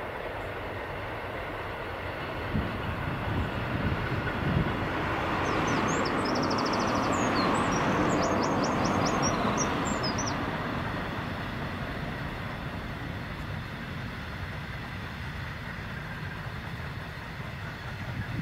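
A pair of Class 60 diesel freight locomotives, with eight-cylinder Mirrlees engines, hauling tank wagons past: a steady diesel and rail rumble that grows louder to a peak about eight seconds in, then slowly fades.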